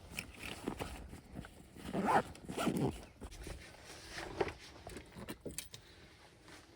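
Close handling noise: short rasping strokes, the two strongest about two seconds in, among scattered clicks and rustles.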